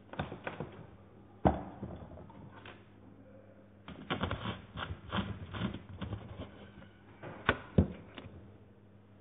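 A plastic soda bottle and drink cans being handled and set down on a tabletop: scattered clicks and crackles, a sharp knock about one and a half seconds in, and a pair of sharp knocks near the end.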